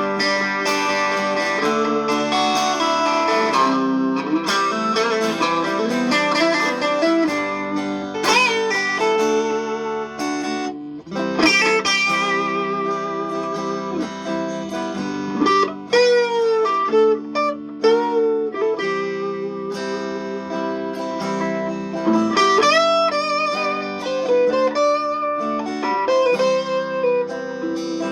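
Fender Telecaster electric guitar played as a sound check: single-note lines with string bends and vibrato over sustained chords, with a short break about eleven seconds in.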